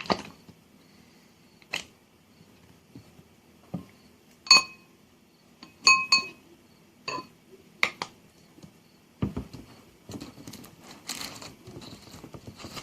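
A metal utensil clinking against a hard dish or jar several times, each strike ringing briefly at the same pitch. Rustling and scraping follow from about nine seconds in.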